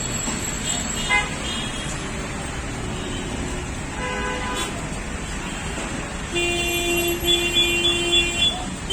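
Motorcycle anti-theft alarm sounding: short electronic chirps about a second in and again around four seconds, then a steady tone for about two seconds near the end, over constant low traffic noise.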